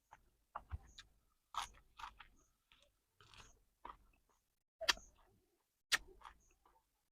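A person chewing with the mouth close to the microphone, with irregular wet smacks and clicks of the lips and tongue.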